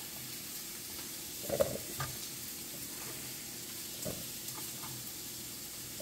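Onions and carrots frying in a pan, a steady soft sizzle, with a few light knocks of mushroom pieces handled on a plastic cutting board.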